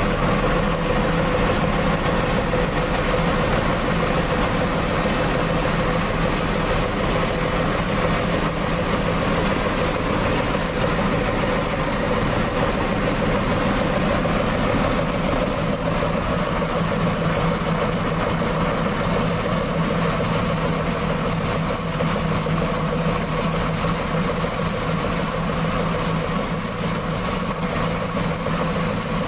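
Mitsubishi PS100 truck diesel engine running steadily at constant speed, driving an N70 rice milling machine, with the mill's hum and rattle mixed in.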